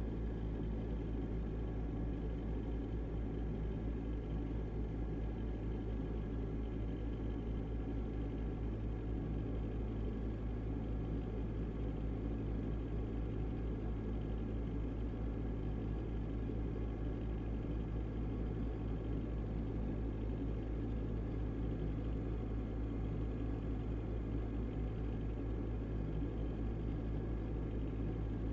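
Refrigerator running with a steady low hum and a faint whine of several steady tones above it.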